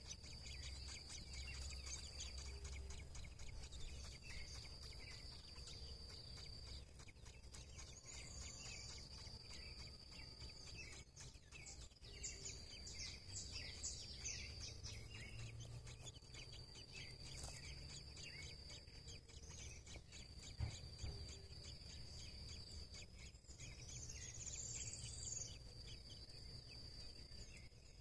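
Faint natural ambience: birds chirping sporadically over a steady, high-pitched insect trill that stops and restarts every few seconds, with a low rumble underneath.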